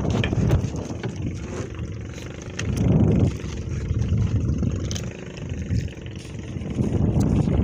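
Small boat engine running steadily, with gusts of wind buffeting the microphone.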